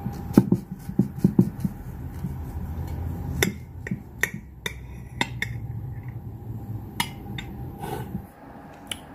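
A kitchen knife cutting slices from a loaf of banana bread, the blade clicking and tapping against the serving platter: a quick run of clicks in the first second and a half, then scattered clicks, over a steady low hum.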